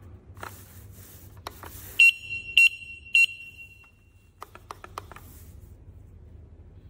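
Sleepsafe wireless interlinked alarm's sounder giving three short, high beeps about half a second apart: the signal that its wireless interconnection has been cleared in a reset. Its button clicks as it is pressed before and after.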